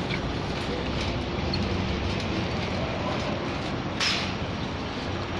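Steady roadside traffic noise from cars and a taxi running at the curb, a low rumble with a faint steady hum. A short hiss comes about four seconds in.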